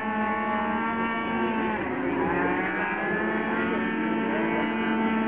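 Racing scooters' small two-stroke engines revving high as they pass, several notes overlapping. About two seconds in, one engine's pitch drops and then climbs again.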